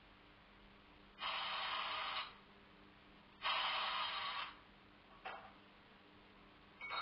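Sound decoder of a Roco ÖBB 1144 model electric locomotive, standing, playing two hisses about a second each through its small loudspeaker, then a short click and a brief final burst near the end.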